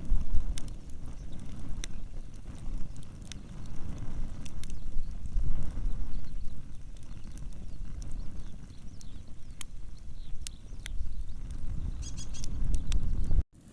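Wood fire burning, with scattered sharp pops and crackles over a low rumbling noise; the sound drops out briefly near the end.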